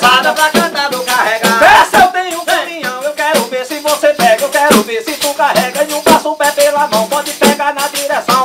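Two pandeiros, jingled frame drums, beaten in a fast, steady embolada rhythm, with a man's sung verse over them.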